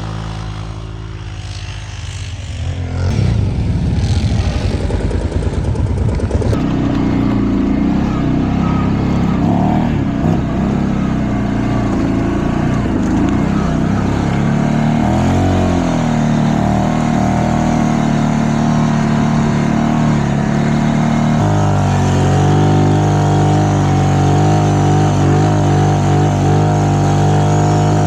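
Kawasaki Brute Force 750 four-wheeler's V-twin engine running under load in deep snow. It revs unevenly for the first few seconds, then pulls steadily, with the engine note shifting about three quarters of the way through.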